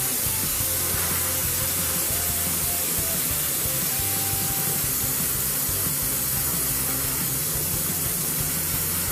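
Airbrush spraying paint: a steady hiss of air and paint, with soft background music underneath.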